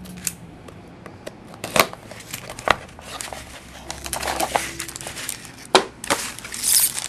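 A small cardboard trading-card box being opened by hand and hockey cards slid out and handled: a few sharp clicks and taps, with stretches of crinkling.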